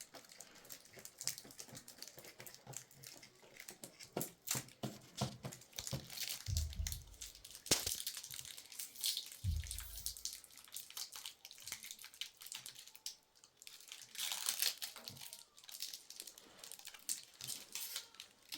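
Faint rustling and crinkling from things being handled, with scattered light clicks and two low thumps.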